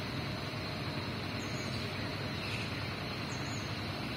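Truck engine idling: a steady low rumble with a hiss over it.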